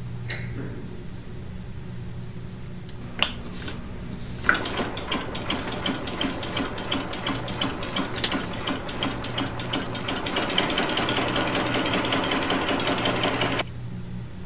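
Compressed-air engine running: a rhythmic pulsing hiss with mechanical clatter that starts about four seconds in, quickens after about ten seconds and cuts off suddenly near the end. A few sharp clicks come before it, over a low steady hum.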